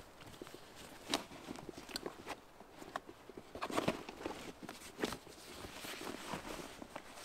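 A backpack being lifted and shouldered: fabric rustling and straps and fittings knocking in a few sharp irregular clicks, with footsteps on the moss and twigs of the forest floor.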